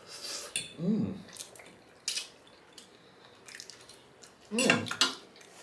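Wet mouth noises of eating brown stew fish: smacking, chewing and finger-sucking, with a sharp click about two seconds in. Two brief vocal sounds come through, one about a second in and one near the end.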